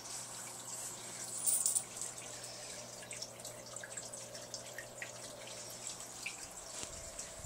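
Aquarium water trickling and dripping steadily, with small drip ticks throughout and a brief louder burst about a second and a half in.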